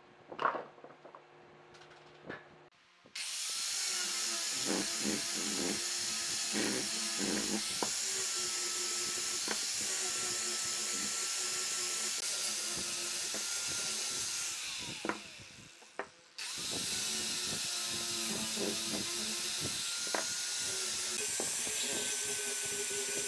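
Angle grinder with a sanding disc sanding a small wooden block: a few light wooden knocks, then about three seconds in the grinder starts and runs with a steady high whine and scraping against the wood. Around fourteen seconds it winds down with a falling pitch and stops, then starts again about two seconds later.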